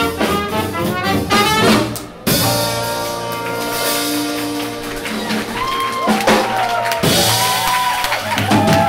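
Small swing jazz band (saxophone, trumpet, archtop guitar, double bass and drum kit) playing the last bars of a tune, then holding a long final chord from about two seconds in. Near the end, the audience begins cheering and applauding.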